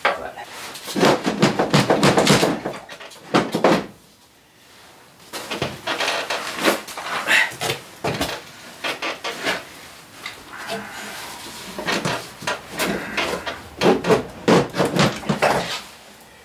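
Tools and metal parts being handled during a snowmobile drivetrain teardown: rapid clinks, taps and knocks in three long flurries with short pauses between.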